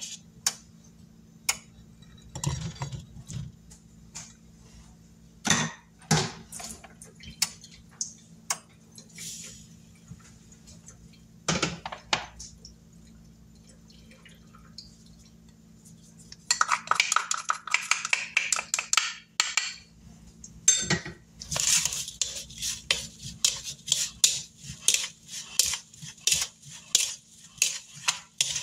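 A plastic spoon stirring blackberries coated in cornstarch in a plastic mixing bowl, a run of quick, regular scrapes and clicks through the second half. Before that come scattered taps and clinks of small dishes and the spoon being handled.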